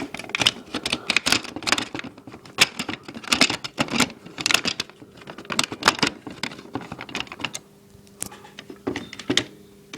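Hard plastic parts of a Nerf Long-Strike blaster clicking and rattling as they are handled and fitted together. A dense run of irregular clicks thins out after about seven and a half seconds, with a few more clicks near the end.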